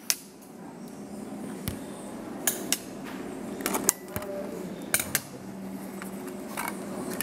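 Irregular sharp clicks and knocks of a hard plastic camera being picked up, handled and set down on a hard tabletop right next to the microphone, over a steady low hum.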